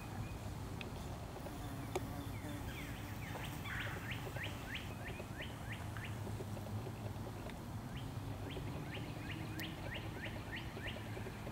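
A songbird singing runs of quick down-slurred whistled notes, several a second, in two phrases about 3 and 8 seconds in, over a steady low rumble.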